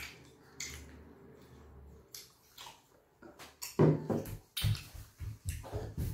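Close-up eating sounds of fufu with slimy ogbono (draw) soup eaten by hand: wet lip smacks, chewing and finger-licking. These are a few sparse clicks at first, then a run of louder, irregular smacks from about four seconds in.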